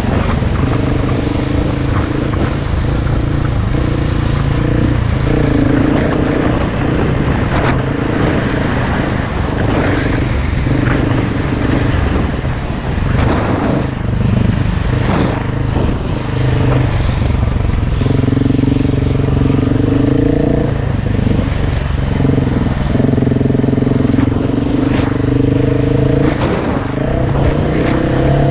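KTM enduro dirt bike engine running hard under load, its pitch holding and stepping up and down as throttle and gears change, with scattered knocks from the rough ground.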